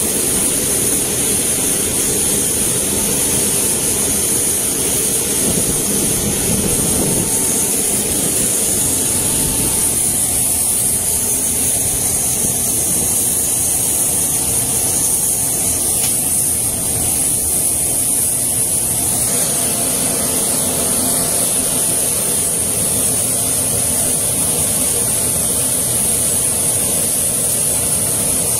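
Steady jet-turbine whine and hiss with a lower engine rumble underneath, from a military transport aircraft and a cryogenic oxygen tanker truck being driven up its rear loading ramp.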